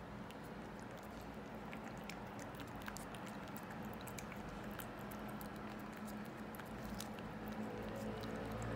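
A cat licking paste from a squeeze-tube treat: a quick, irregular run of small wet tongue clicks and smacks. A steady low hum sits underneath.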